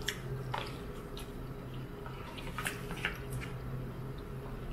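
Soft, wet chewing and mouth smacks from eating raw fatty toro tuna sashimi: a scattering of short clicks and squishes over a steady low hum.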